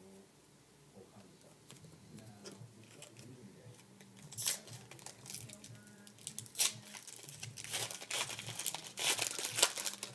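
A trading card pack's wrapper being torn open and crinkled in the hands. Faint handling clicks come first, then dense, crackly tearing and crumpling from about halfway through.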